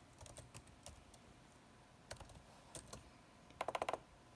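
Faint keystrokes on a laptop keyboard as text is typed: scattered taps, then a quick run of clicks near the end.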